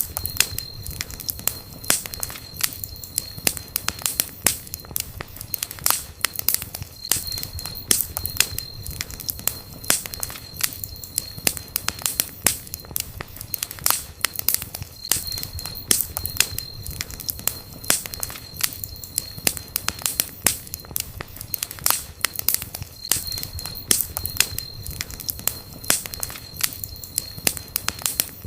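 Campfire crackling steadily, with frequent irregular sharp pops and snaps over a low rumble of the burning wood.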